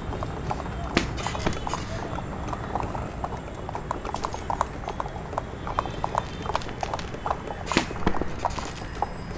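Foley clip-clop of a horse's hooves on a street, an irregular stream of short knocks over a steady background rumble. Two louder sharp cracks stand out, about a second in and again near the end.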